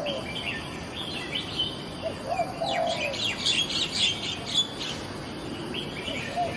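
Birds chirping and twittering, with a burst of rapid high chirps about halfway through. A short, lower call sounds twice, about two and a half seconds in and again near the end.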